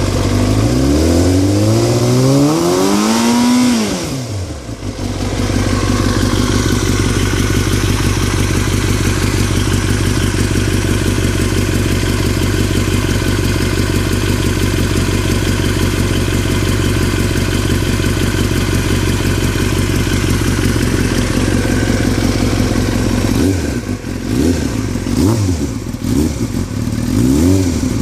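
2003 Yamaha R6's inline-four engine revved once and let fall back, then idling steadily, then blipped three or four times near the end. This is the rattling running sound its owner noticed recently and is unsure is normal.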